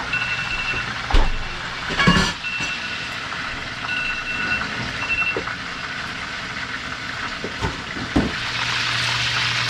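Kitchen cooking noise: a steady hiss and low hum, with a few sharp clinks and knocks of utensils against cookware, and the hiss swelling near the end.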